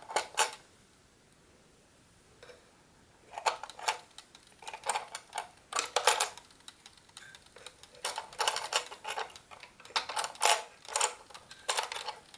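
GARDE classic mechanical chess clock being wound by hand: its winding ratchet clicks in short bursts of rapid clicks, one burst about every second, after a single click at the start.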